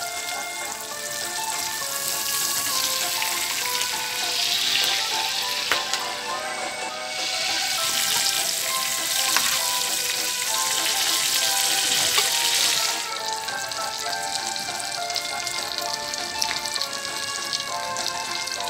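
Steak frying in foaming butter and olive oil, a loud steady sizzle, over background music. The sizzle eases briefly about a third of the way in, then fades about two-thirds of the way through, leaving mostly the music.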